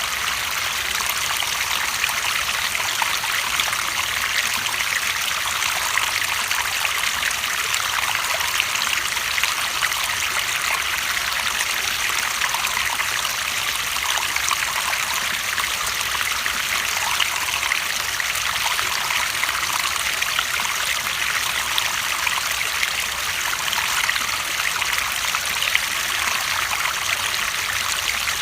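Running water trickling and splashing steadily, like a small stream over stones, a bright continuous rush with many fine splashes.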